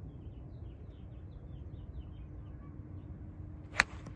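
A bird chirping in a quick run of short high notes over low wind rumble, then near the end a single sharp crack of a golf club striking the ball.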